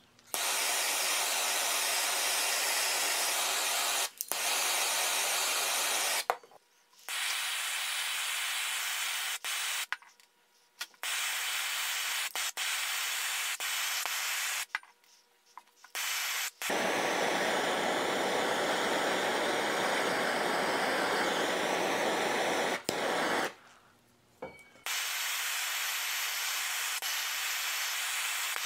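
Hand-held gas blowtorch burning with a steady hiss as its flame chars a wooden hatchet handle. The hiss breaks off and resumes several times, sounding fuller and deeper for a stretch past the middle.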